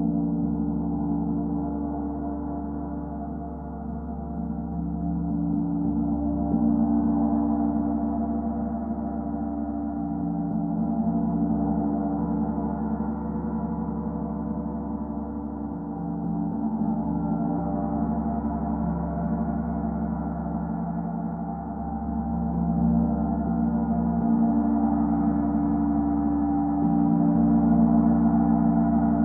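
Gongs played in a gong bath: a continuous wash of many overlapping ringing tones, swelling and easing in slow waves every few seconds.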